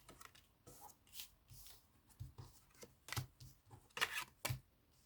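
Tarot cards being shuffled and handled: soft, scattered card rustles with a few sharper snaps about three to four and a half seconds in.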